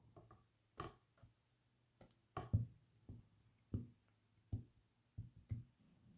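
Cubes of unsalted butter dropped one by one into a mixing bowl of powdered sugar, flour and egg: a series of separate soft thuds, about nine in six seconds.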